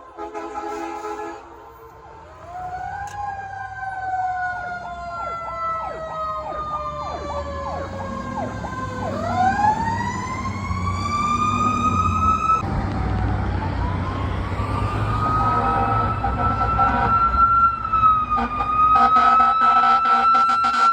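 Fire engines' Federal Q mechanical siren winding slowly down, then spinning back up twice to a high steady wail, with a second fast-warbling siren alongside it for a few seconds and a diesel engine rumbling underneath. A short horn chord sounds at the start, and repeated air-horn blasts come over the siren near the end.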